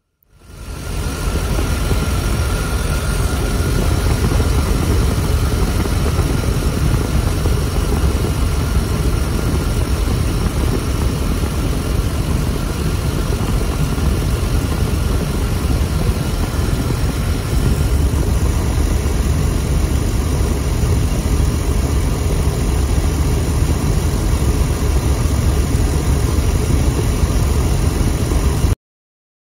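1995 Chevy van's 5.7-litre V8 engine running steadily. It fades in over the first second, gets slightly heavier in the low end about two-thirds of the way through, and cuts off abruptly just before the end.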